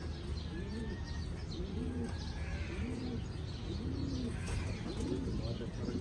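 Pigeons cooing, a low rising-and-falling coo repeated about once a second, with small birds chirping faintly higher up.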